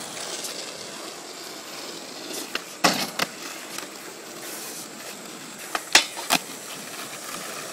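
Skateboard wheels rolling on asphalt, with several sharp clacks of the board against the pavement: a pair about three seconds in, then a louder cluster about six seconds in as the board hits a metal grind rail.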